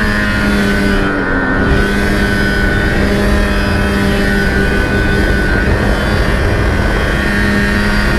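Lynx G-type Enduro 500 snowmobile's Rotax 494 RAVE two-stroke twin running under load at a steady pitch while the sled cruises, after accelerating just before; the engine note dips briefly about a second in.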